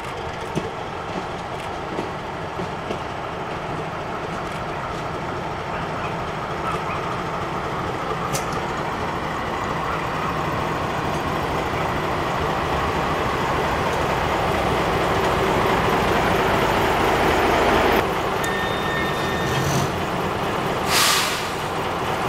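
1934 Škoda 'Modrý šíp' M 274.0 motor railcar running toward the listener, its engine and wheels growing steadily louder for about 18 seconds. The sound then changes abruptly to the railcar standing, with a short sharp hiss of air about three-quarters of a second long near the end.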